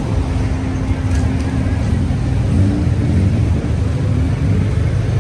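Street traffic: motor vehicle engines running close by in a steady low rumble, with a low engine hum in the first couple of seconds.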